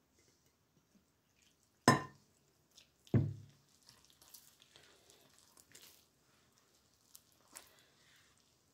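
A hand squishing and kneading soft, sticky yeast dough in a glass bowl, with faint wet squelches. Two sharp knocks about a second apart, about two seconds in, are the loudest sounds; the first rings briefly.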